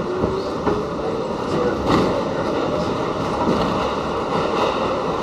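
R68 New York City subway car running at speed, heard from inside the car: a steady rumble of wheels on the rails with sharp clicks, one about two seconds in. A faint traction-motor whine rises in pitch over the first second and a half as the train gathers speed.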